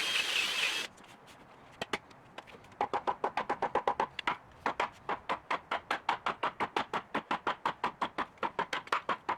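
A short burst of hissing noise at the start, then a hammer striking rapidly and steadily, about six light blows a second, with a brief break just after four seconds in.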